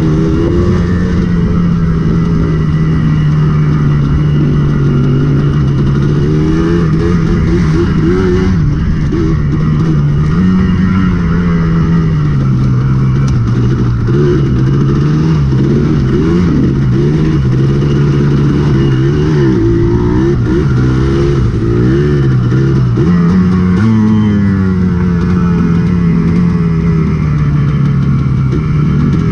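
Dirt bike engine running under way, its note mostly steady with small rises and falls as the throttle changes, and a rise about two-thirds through that eases back down.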